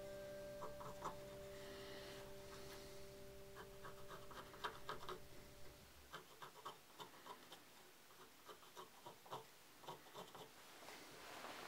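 Faint, irregular short scrapes of a snap-off utility knife blade shaving a wooden whip handle. For the first half they lie under a steady held tone, which stops about halfway through.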